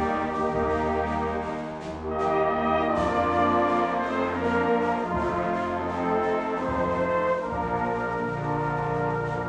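Brass music playing slow, held chords that change every few seconds.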